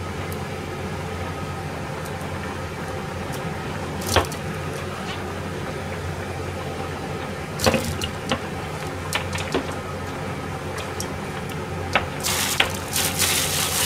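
Kitchen tap turned on about 12 seconds in and running into a stainless sink, after a few light knocks from handling a plastic cutting board and cherry tomatoes, over a steady mechanical hum.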